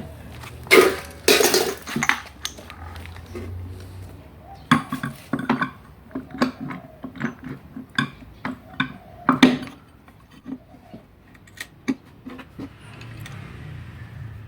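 Metal parts of a winch brake assembly clinking and knocking as they are handled and fitted together. There is a louder clatter about a second in, then a run of quick light taps, which thin out near the end.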